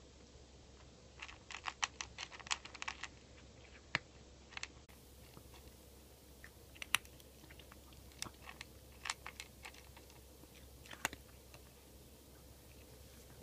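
A cat chewing and crunching cat food from a bowl: a quick run of crisp crunches a second or so in, then scattered single crunches.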